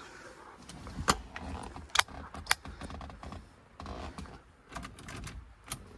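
Keys jangling and clicking in a 1973 VW Karmann Ghia's replacement ignition lock as the key is worked, with a few sharp clicks and a quick run of clicks near the end. No starter is heard: the engine does not turn over.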